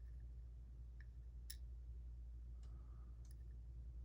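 A few faint, scattered clicks of small metal lock pins being handled as a gutted pin-tumbler lock's pins and springs are laid out, over a low steady hum.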